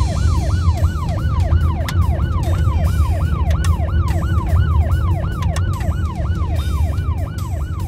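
Police siren in a fast yelp, each wail sweeping down in pitch about three times a second, over a low rumble.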